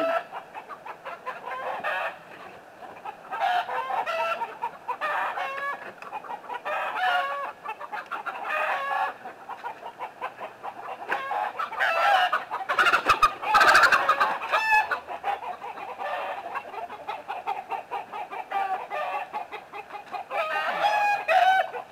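Backyard hens clucking and squawking over and over. A louder stretch of knocks and rattling comes about two-thirds of the way through.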